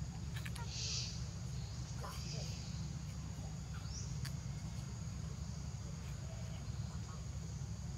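Outdoor ambience: steady high-pitched insect drone over a low rumble, with a few short clicks and a brief rising chirp about four seconds in.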